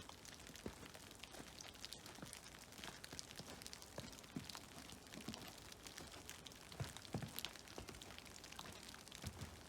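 Meltwater dripping from snow-covered trees: many irregular drops pattering down, with a few louder ones about seven seconds in, over a faint steady wash of water.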